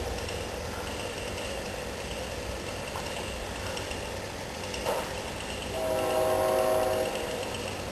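Chainsaw engine running low, then opening up to a steady high-revving whine for about a second and a half near the end, as in cutting into a tree trunk.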